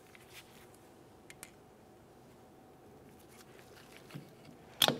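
Small metallic clicks as a pick works a drum brake return spring's hook. Near the end there is a sharp, loud double click as the hook snaps into its hole in the brake shoe.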